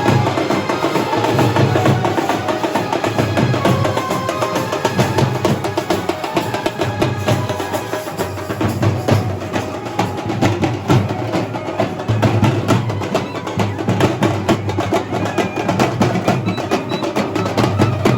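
Loud, fast, dense drumming with some faint melody lines on top: a procession drum band playing.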